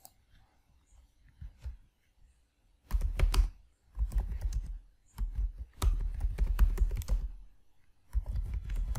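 Computer keyboard typing in several quick bursts of key clacks, each burst the length of a short command. A single click comes right at the start.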